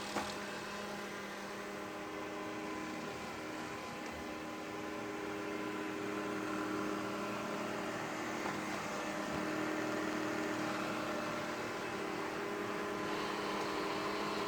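DEEBOT OZMO 950 robot vacuum-mop running: a steady motor whir with several hum tones, and a brief click just after the start.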